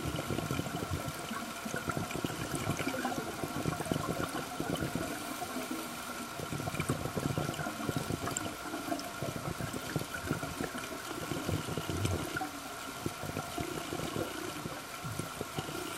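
Underwater sound picked up by a camera in a waterproof housing: a continuous rush and gurgle of moving water with uneven low surges, and a faint steady tone underneath.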